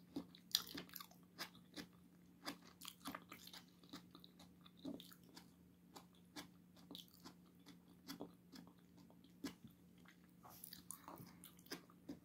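A person chewing food, heard faintly as irregular soft mouth clicks, over a steady low hum.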